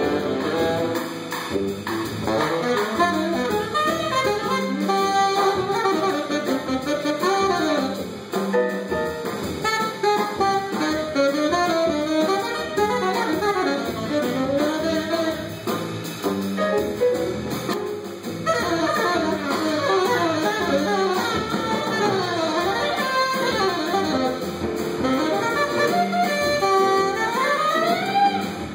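Live jazz: a tenor saxophone solos in fast runs of notes that climb and fall, over the band.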